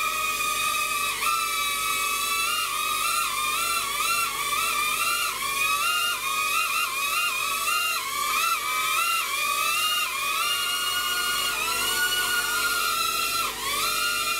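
Small electric motors and propellers of a jet-shaped toy RC aircraft hovering, a high whine whose pitch dips and rises every second or so with throttle corrections.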